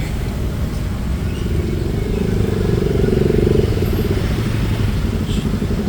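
A motorcycle engine passing close by, its note swelling to loudest about three and a half seconds in and then fading, over the steady rumble of road traffic.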